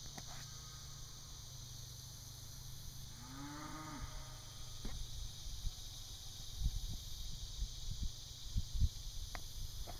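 A cow mooing once, faintly, about three seconds in: a single drawn-out call that rises and then falls. A few low bumps follow near the end.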